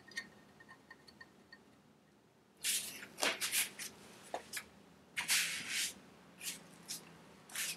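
Hand tool working on engine bolts: a run of short metallic scrapes and clicks starting a few seconds in, with one longer rasp in the middle, as two bolts holding the cylinder are snugged down.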